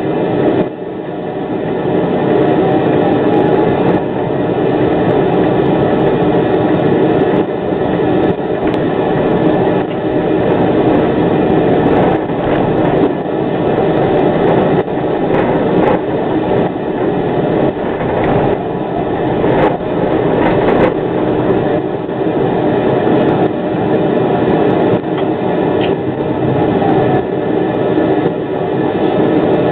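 Škoda 03T 'Anitra' low-floor tram running along street track, heard from inside the driver's cab: a steady rumble of wheels and running gear with occasional clicks.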